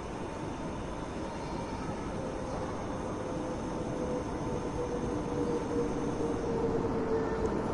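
A train arriving: a steady rumble that grows slowly louder, with a whine that strengthens partway through and slowly falls in pitch as the train slows.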